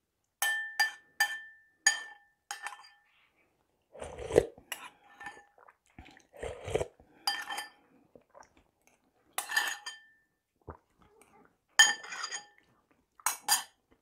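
A metal spoon clinking against a porcelain soup bowl, about a dozen sharp ringing taps spread unevenly, several close together in the first two seconds, while someone eats soup from it. Softer, duller eating noises come between the taps.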